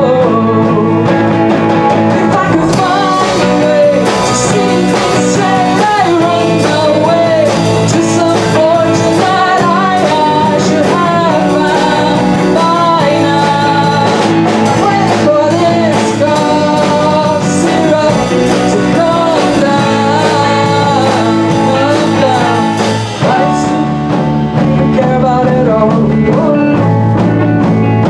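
Live rock band playing a song: a lead vocal sings over electric guitars, bass guitar and drum kit. About five seconds before the end the drum hits stop and the guitars and bass carry on.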